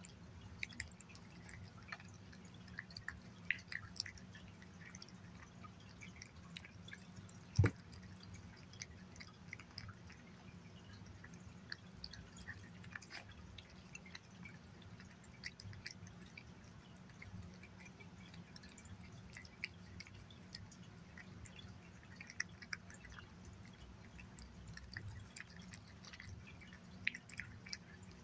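A cat eating wet chicken pâté from a glass plate: many small, irregular wet smacks and licks as it chews and laps, with one louder thump about seven and a half seconds in, over a low steady hum.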